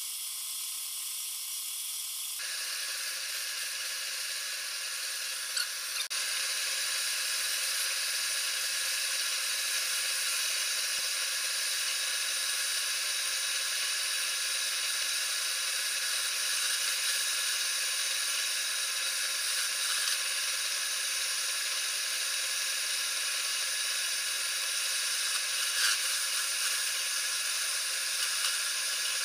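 Wood lathe spinning a wooden spindle while a hand-held turning chisel cuts it: a steady hiss of the cut over the lathe's motor whine. The sound fills out about two seconds in, and there is a short click a few seconds later.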